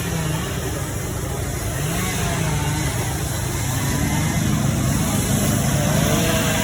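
Small gasoline engines running steadily, most likely chainsaws at work among the carvers, their pitch wandering up and down, with people's voices mixed in during the second half.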